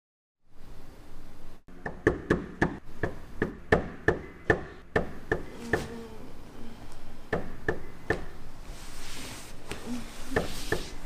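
Sharp taps of a hand-held metal object against a hard surface: about a dozen in quick, uneven succession, then a few more scattered later.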